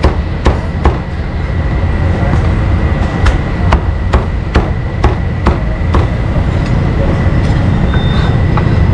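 A cleaver chopping meat on a chopping block: repeated sharp chops, about two a second, pausing for a couple of seconds after the first few, over a steady low rumble.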